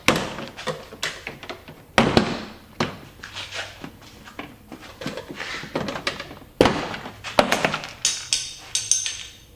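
Plastic trim clips and tabs snapping loose as a Jeep Grand Cherokee's hatch trim panel is pried off with a metal panel tool. A series of sharp pops and clacks of plastic, the loudest at the start, about two seconds in and at about six and a half seconds, then a quick run of smaller clicks near the end.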